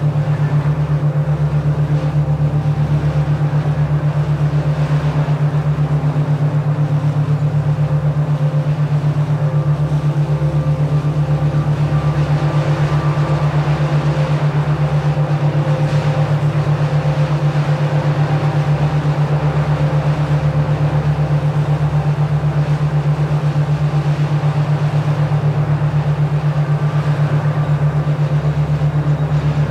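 Steady low humming tone with a fast, even pulse, typical of a binaural-beat meditation track, with fainter sustained ambient tones above it.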